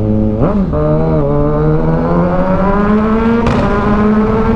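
Kawasaki Ninja 1000SX inline-four running through an AR shorty aftermarket exhaust, which makes it loud. It revs up quickly and drops with a gear change about half a second in, then pulls with its pitch climbing steadily until another shift near the end.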